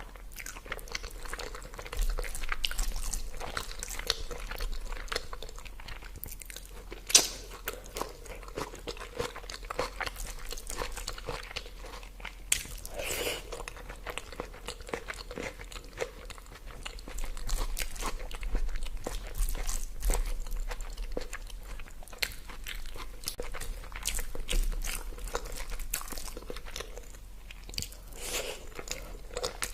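Close-miked eating: a person biting and chewing food with crunchy, wet mouth sounds and many small clicks. There is one sharp, loud click about seven seconds in.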